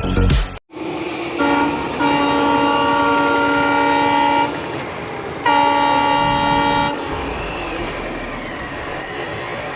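A horn sounding a long steady blast of about three seconds, then a second, shorter blast of about a second and a half, over a steady background hiss.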